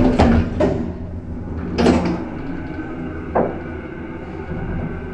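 Passenger doors of a Stadler GTW railcar sliding shut: a couple of knocks at the start, the loudest thud about two seconds in as they close fully, and a lighter clunk about three and a half seconds in, over a steady low hum from the railcar.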